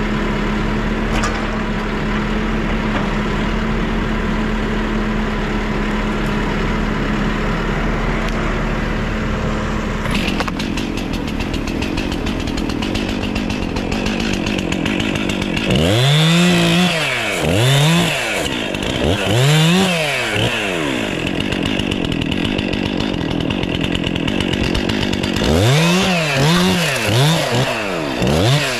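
Stihl MS 500i chainsaw revved up and down in short bursts, three around the middle and three more near the end. Before the bursts there is a steady engine drone holding one tone.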